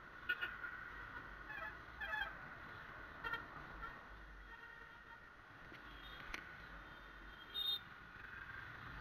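Road traffic heard from a moving motorcycle: several short vehicle horn toots over a steady background hum, the sharpest just after the start and another near the end.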